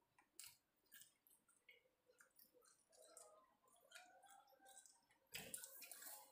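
Near silence with faint chewing and small mouth clicks from someone eating a mouthful of food; a brief louder noise comes about five seconds in.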